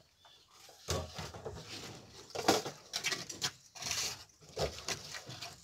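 Ferrets scrabbling and shifting about in a wooden box: irregular scratching and scuffling with a few sharper knocks, the loudest about a second in and midway through.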